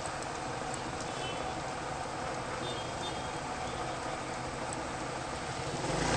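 Street traffic noise with vehicle engines running steadily, and a few faint short high beeps about a second in and again near three seconds in.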